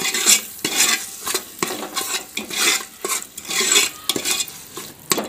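A steel spoon stirring and scraping a thick masala paste around an aluminium pressure cooker in repeated strokes, over the sizzle of the masala frying in oil.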